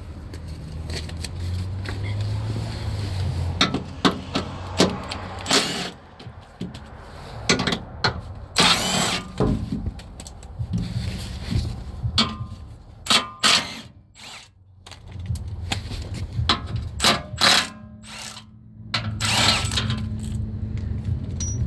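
Bolts holding the engine undercover being undone with a 13 mm socket: a run of irregular mechanical clicks and knocks, with a low hum in stretches.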